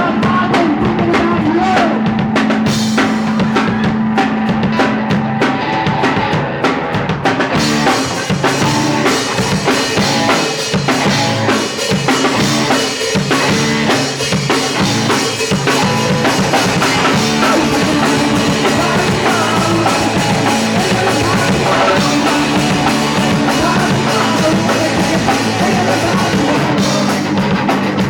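A punk rock band playing live, the drum kit loud and driving, with the high end of the sound filling out about a quarter of the way in.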